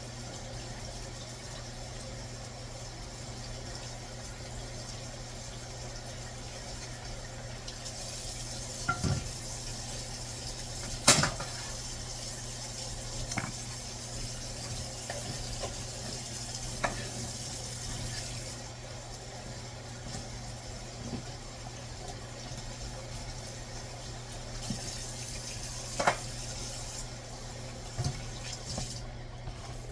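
Kitchen work: scattered clinks and knocks of pots, a strainer and utensils over a steady low hum and hiss, with a sharp knock about a third of the way in the loudest. Water runs from the tap at times.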